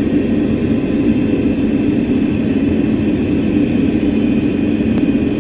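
Steady, loud, unbroken drone of an aircraft in flight.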